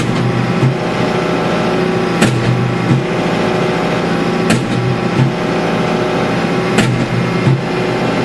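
Tractor engine running steadily, heard from inside the cab, while a Danuser Hammer hydraulic post driver strikes a wooden fence post four times, about every two and a quarter seconds. Each sharp blow is followed by a lighter knock about half a second later.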